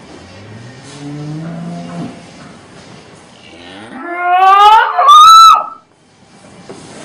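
A cow mooing twice: a short low moo rising in pitch about a second in, then a much louder moo that climbs steeply into a high, strained bellow and cuts off abruptly.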